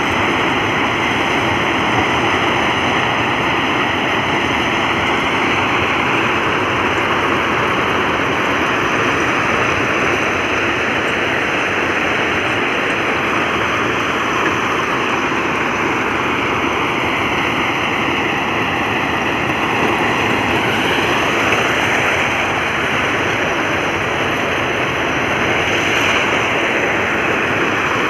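Plasser ballast cleaning machine at work on the track: its engines, excavating chain and spoil conveyors running together in a loud, steady mechanical din, with slow sweeps in pitch now and then.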